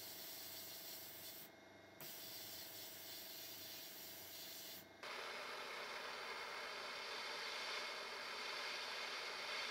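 Blast-cabinet gun hissing steadily as it blasts abrasive onto a small metal part, cutting out for about half a second near a second and a half in. Just after five seconds a handheld gas torch takes over with a louder, brighter steady hiss of its flame.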